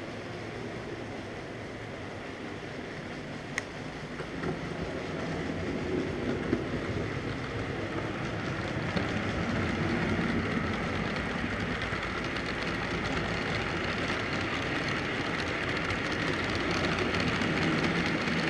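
Model freight train running along the layout's track: a steady rumble and rattle of wheels on rails that grows louder as the wagons come close. There is one sharp click a few seconds in and a few knocks soon after.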